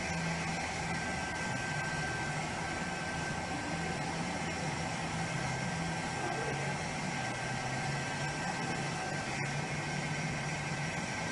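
An engine running steadily, a constant low hum under an even hiss, with a brief click about nine seconds in.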